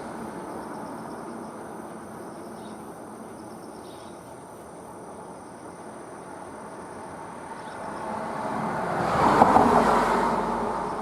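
A road vehicle passing by, its noise swelling to a peak about nine and a half seconds in and then fading, over a steady background of distant traffic.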